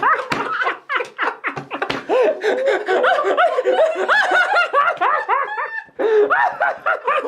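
Several people laughing hard at once, their overlapping voices rising and falling in quick peals, with a brief lull just before the laughter picks up again near the end.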